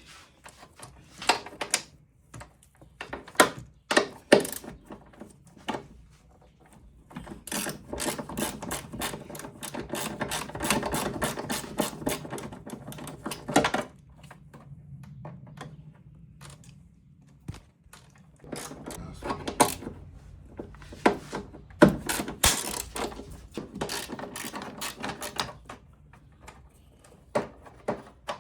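Hand tools clicking and knocking on metal while bolts are undone in a van's engine bay, with stretches of rapid, fairly even clicking like a ratchet wrench working a bolt, and scattered single knocks.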